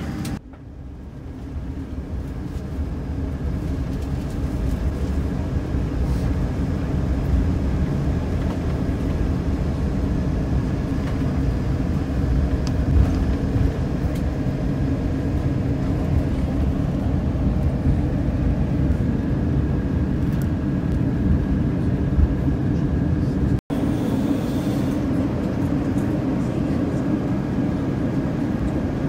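Steady low cabin rumble of an Airbus A350-900 with its Rolls-Royce Trent XWB engines and air system running on the ground. The rumble fades in at the start and cuts out for an instant about two-thirds through.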